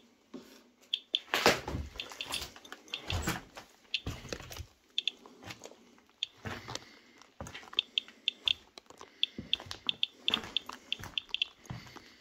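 Footsteps crunching and knocking on a debris-covered floor, over irregular short high chirps from a handheld Inspector Geiger counter, one chirp for each detected count and coming in uneven clusters.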